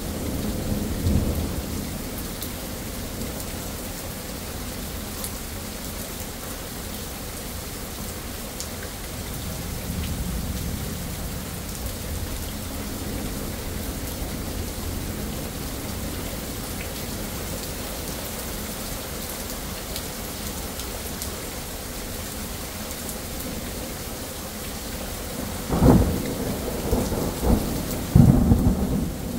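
Steady rain falling on pavement and foliage, with low thunder rumbling about a second in and louder thunder rolling in near the end.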